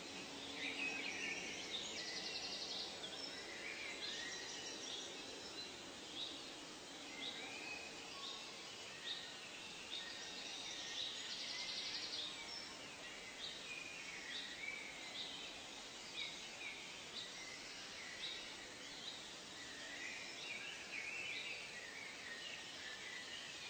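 Birds chirping and calling over a steady hiss, in many short, repeated notes, with a fast buzzing trill about two seconds in and again about eleven seconds in.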